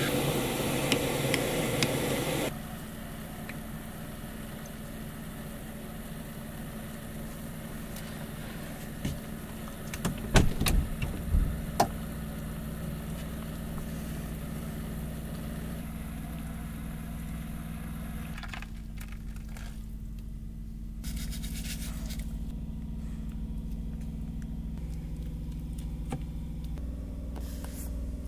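Jetboil camp stove's gas burner hissing, cut off after about two seconds. Then a steady low hum, with a few clinks and clatters about ten to twelve seconds in.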